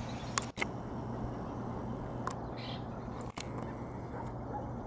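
Egret colony calling from the trees: harsh croaking bird calls over a steady rushing background, with a couple of short sharp clicks.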